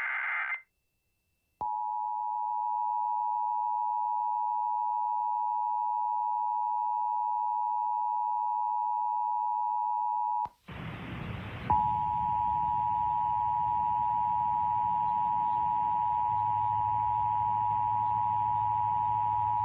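The end of a burst of EAS data tones, then the Emergency Alert System two-tone attention signal (853 and 960 Hz sounded together) held steady for about nine seconds. It cuts off suddenly. After a second of noise a second attention signal sounds for about eight seconds over hiss and a low hum, the alert tone of a Required Monthly Test.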